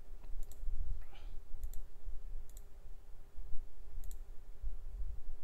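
Computer mouse clicking four times, one to two seconds apart, over a faint steady hum.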